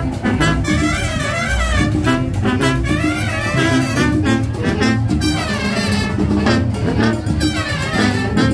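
Marching band playing live: a brass section with trumpets, trombones and sousaphone carries a wavering melody over drums keeping a steady beat.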